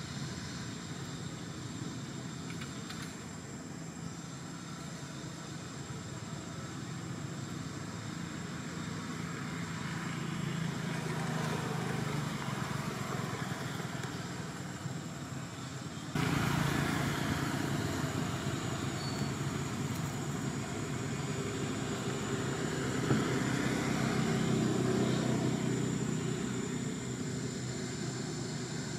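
Background motor vehicle engines: a steady hum that swells louder twice, as if vehicles are passing, with a sudden step up in level about sixteen seconds in.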